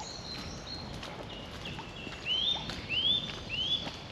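A bird calling outdoors: a series of short chirps that each rise in pitch and then level off, four of them in the second half, with faint footsteps on a path beneath.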